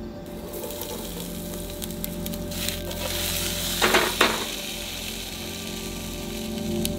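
Diced potatoes sizzling and frying in oil in a wok on a two-burner camp stove, with two short, louder scraping rasps about four seconds in as the pan is tossed and stirred.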